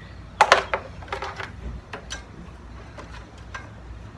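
Handling noise from a Battery Tender charger lead being worked along a riding mower's battery and frame: a handful of sharp clicks and rattles, loudest about half a second in, with lighter ticks later.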